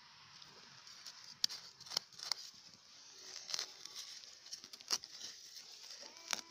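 Hands digging and scraping through loose soil and dry grass roots, tearing and pulling at them, giving irregular crackles and sharp clicks over a steady hiss.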